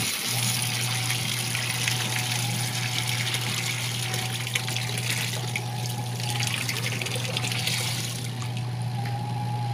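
Water running steadily, with a constant low hum underneath.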